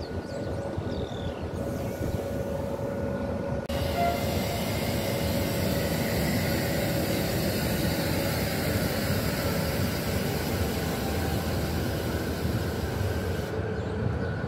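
Renfe Media Distancia passenger train moving past a station platform: a steady rumble of wheels on rails and running gear. The sound changes abruptly about four seconds in.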